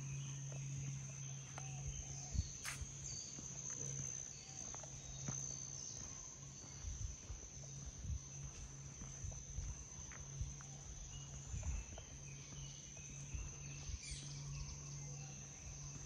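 Footsteps on a rainforest trail under a steady, high-pitched insect trill, with a low steady hum throughout.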